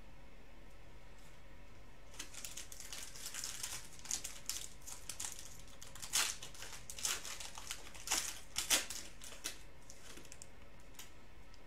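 Foil trading-card pack wrappers being torn open and crinkled by hand: irregular crackling tears starting about two seconds in and stopping near ten seconds, loudest around six and nine seconds in.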